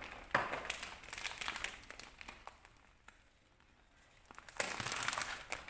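Plastic toy packaging being crinkled and pulled open by hand, in irregular crackly bursts. A short lull comes about three seconds in, and it grows louder near the end.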